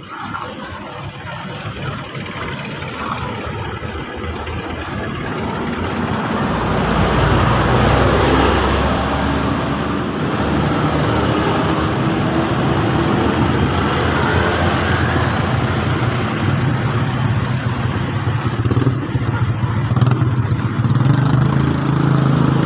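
An engine running, getting louder over the first several seconds and then holding at a steady hum.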